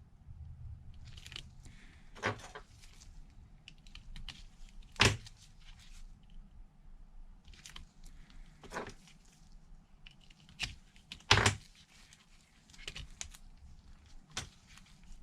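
Irregular sharp clicks and taps of small hand tools handling a phone on a workbench during a screen repair, with two louder clicks about five and eleven seconds in.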